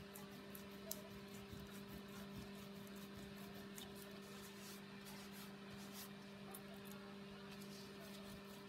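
Faint, scratchy rubbing of a small block on kraft cardboard, rubbing off dried glue in short irregular strokes, over a steady low electrical hum.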